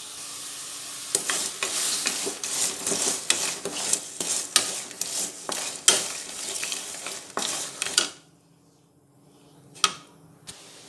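Jaggery melting with a little water in a metal kadai: a steady sizzle, then a spoon stirring and scraping against the pan in quick clinks, stopping about eight seconds in, with a couple of lone clinks near the end.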